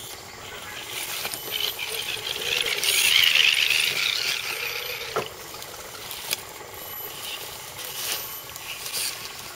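Electric RC scale crawler trucks driving over a log and down a leafy dirt trail, their motors and gears whining and swelling under load about three seconds in, with a sharp click a little after five seconds.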